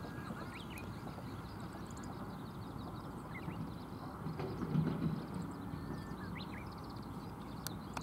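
Outdoor riverbed ambience: a steady low background noise with scattered short, high chirps of small birds. A brief, louder low-pitched sound comes about halfway through.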